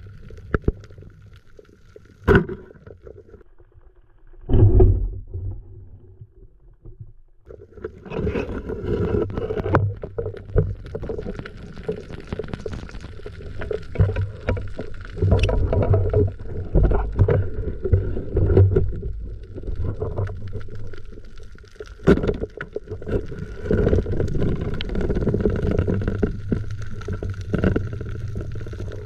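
Muffled underwater noise heard through a waterproof camera housing: water churning and rumbling against the housing, with scattered knocks and clicks as a speared squid is handled. It starts fairly quiet with a couple of sharp knocks and grows louder and busier about eight seconds in, over a faint steady whine.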